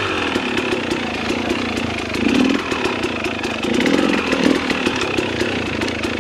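Dirt bike engine under low-speed trail riding, the revs rising and falling with short throttle pickups about two and a half and four seconds in.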